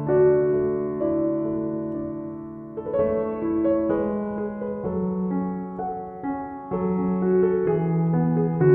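Slow, gentle piano background music, sustained chords changing every second or two.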